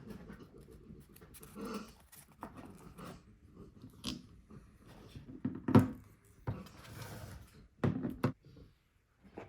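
Hands handling a phone box and its packaging: irregular rustling and light taps, with one louder knock about six seconds in and a short burst of knocks near the end.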